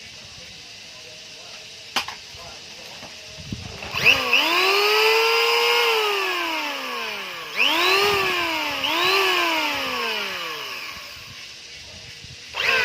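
NRT Pro electric power tool motor switched on in short bursts: four times it whines up to speed at once, then winds down slowly when the switch is let go, the last start near the end. A sharp click about two seconds in.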